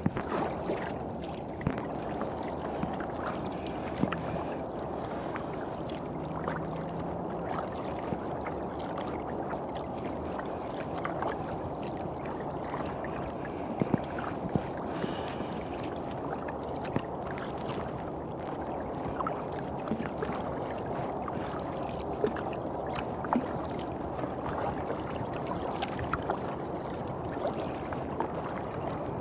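Water splashing and lapping around a kayak as it is paddled, a steady wash broken by a few scattered sharp clicks.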